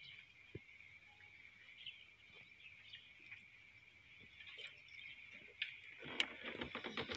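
Faint outdoor ambience: a steady high-pitched drone with scattered bird chirps. Near the end comes a short run of crackling clicks.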